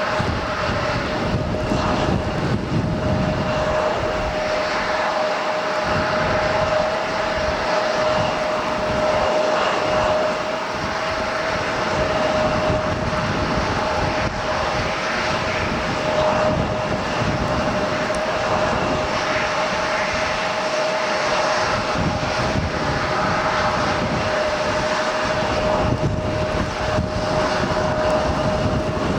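Airliner engines running with a steady roar and a constant-pitched whine throughout.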